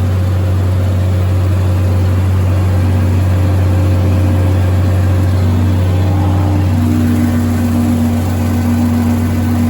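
Tractor engine running steadily while mowing, a loud constant low drone heard from inside the cab, with a fainter higher steady whine that comes and goes from about three seconds in.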